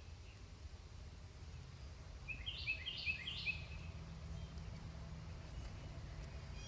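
A songbird sings one short phrase of about four quick, high, down-slurred notes lasting about a second, over a steady low rumble.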